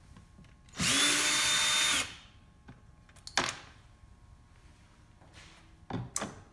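Cordless drill with an 8mm socket running in one short burst of about a second, its whine rising quickly as it spins up and then holding steady, as it drives out a screw of the cabin filter housing. A sharp knock follows a couple of seconds later, then a short clatter of knocks near the end.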